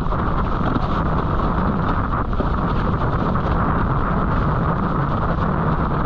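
Strong wind buffeting the camera microphone during a high-wind windsurfing run: a loud, steady rumble with no let-up.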